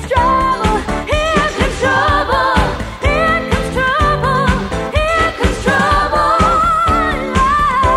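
Pop song: a woman's voice singing long notes with vibrato over a steady beat.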